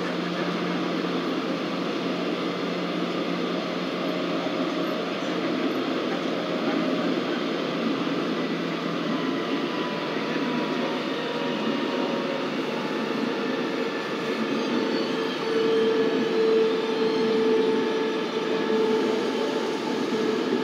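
Cabin noise of a Busan Metro Line 2 subway car running through a tunnel: a steady rumble of wheels on rails with a steady tone, which grows louder in the last few seconds.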